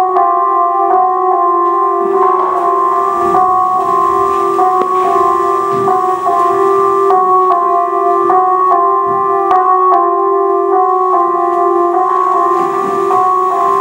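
Backing music led by a keyboard with a piano-like sound, playing notes in an evenly repeating pattern at a steady pulse.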